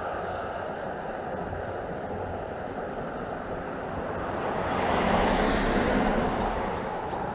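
Cars driving over a road bridge: a steady rush of traffic noise that swells to its loudest a little past halfway through, as vehicles pass, and then eases off.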